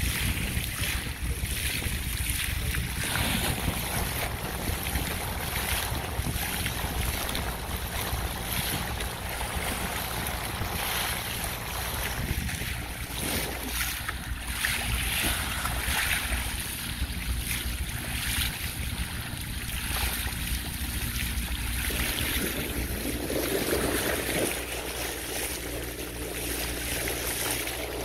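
Sailing trimaran's bow cutting through the water, its bow wave hissing and splashing in surges, with wind buffeting the microphone as a low rumble.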